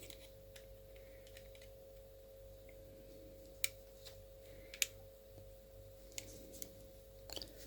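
A few faint, sharp clicks of a fine craft-knife blade on a watch case as it is worked under the tongue of the snap-on case back to pry it open, over a steady faint hum.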